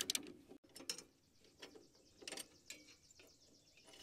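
Faint, scattered clicks and light taps from a hand wrench and small bolts and washers being handled.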